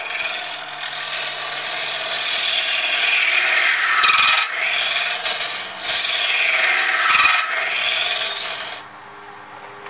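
Turning tool cutting a spinning walnut blank on a wood lathe in a finishing pass: a steady scraping cut that eases off briefly twice and stops about nine seconds in.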